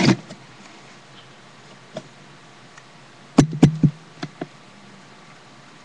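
Sharp knocks: one bump at the start, then three in quick succession about three and a half seconds in, followed by two lighter ones.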